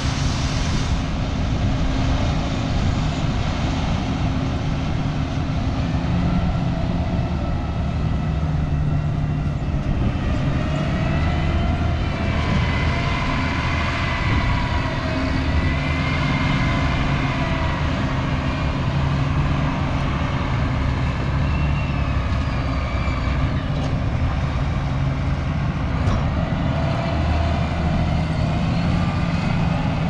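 Heavy diesel harvest machinery running steadily: a constant engine drone, with a higher whine that wavers up and down in pitch through the middle.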